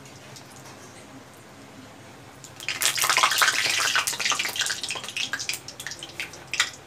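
Bay leaves frying in hot oil in a cast-iron kadhai: low sizzling, then about two and a half seconds in a sudden loud burst of spattering crackle that thins out over the next few seconds.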